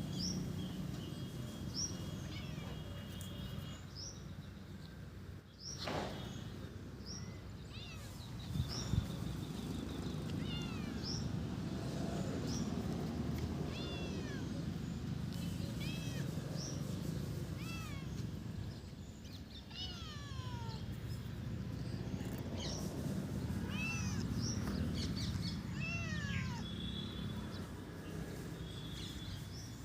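A domestic cat's long, low growling yowl that swells and fades, the warning a cat gives at an intruder. Short high chirps, like small birds calling, come and go over it.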